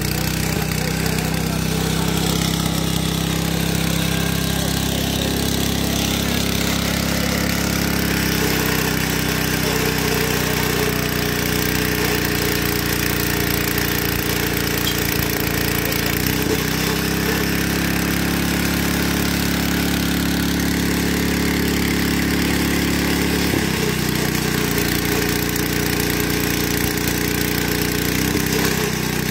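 Small petrol engine of a hydraulic power pack running steadily while it drives a weld trimmer shearing the excess metal off a fresh thermite rail weld. Its pitch shifts slightly a few times.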